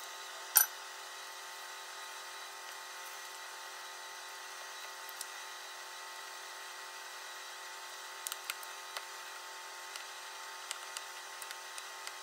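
Steady background hum throughout, with a sharp knock about half a second in and a few light clicks from about eight seconds on as a silicone spatula stirs batter in a plastic mixing bowl.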